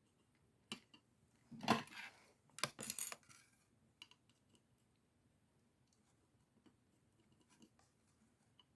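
Light clicks and clattering knocks of small hard parts being handled and set down on a workbench, loudest about two and three seconds in, then scattered faint ticks.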